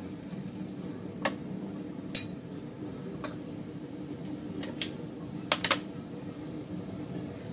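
Cumin seeds going into hot oil in a nonstick pan: a few scattered sharp clicks and pops, the loudest a quick pair about three-quarters of the way through, over a steady low hum.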